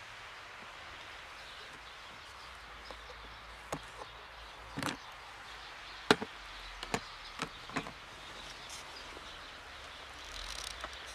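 Sharp clicks and clatters of a plastic pet carrier's wire door being unlatched and lifted off, about half a dozen over a few seconds with the loudest near the middle, over a steady faint outdoor hiss.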